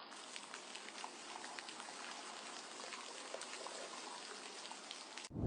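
Faint, steady rain with many small scattered drips and patters. A much louder sound starts abruptly at the very end.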